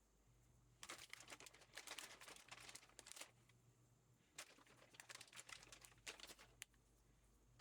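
Faint crinkling and clicking handling sounds in two bursts, one starting about a second in and one about four and a half seconds in.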